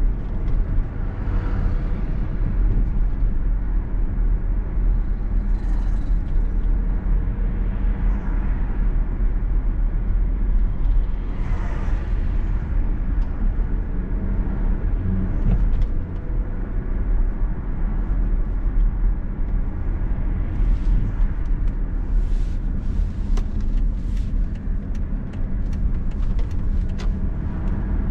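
Steady low rumble of engine and road noise inside a moving car's cabin, with a few faint swells of higher noise along the way.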